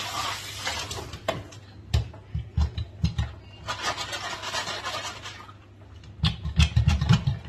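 Hands in rubber gloves cleaning a kitchen sink: two spells of hissing, about a second each, at the start and in the middle, between clusters of low bumps and knocks from handling, the heaviest near the end.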